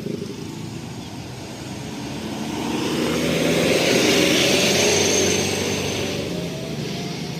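A road vehicle passing by: its sound swells to a peak about four seconds in and fades away. Underneath is the steady low hum of an engine running close by.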